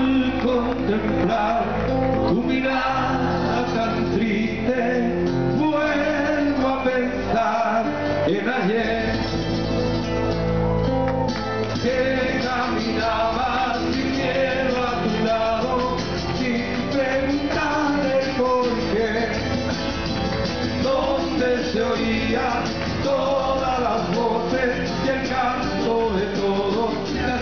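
Chilean folk-rock band playing live, with acoustic and electric guitars and a brass horn, and voices singing.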